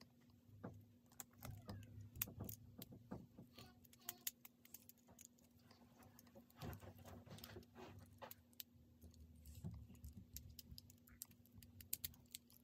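Lego Technic pieces being handled and fitted together: irregular light plastic clicks and rattles, over a faint steady hum.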